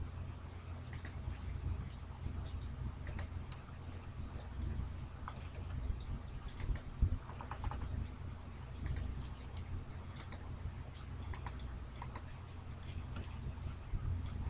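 Computer mouse clicking irregularly, roughly once a second with some quick double clicks, over a low steady hum.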